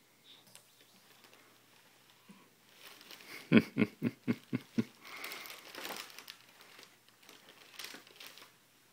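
Tissue paper crinkling and rustling. A few seconds in, a quick run of six loud pulses, about four a second, is the loudest sound.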